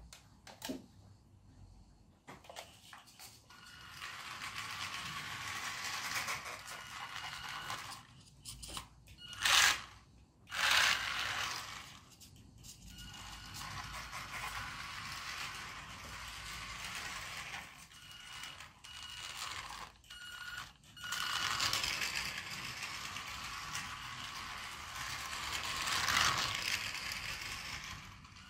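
Small brushed electric motor of a radio-controlled toy car whirring as it drives, its hard plastic wheels rolling on a laminate floor. It stops and starts several times in runs of a few seconds, with two louder bursts about ten seconds in.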